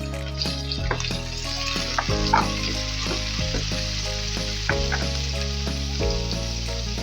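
Food sizzling in a hot frying pan during a water spinach and tofu stir-fry, a steady hiss, with instrumental background music of held notes changing every second or so.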